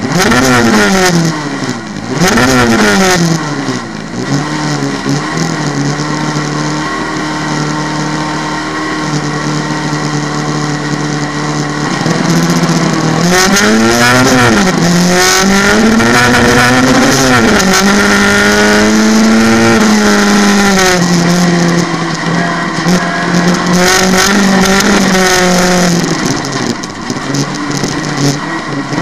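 In-cabin sound of a VW Beetle autocross car fitted with a VW Golf engine, run hard under racing load. The engine revs up and drops back twice in the first few seconds as it shifts up, holds steady high revs, then rises and falls repeatedly midway as the driver accelerates and lifts.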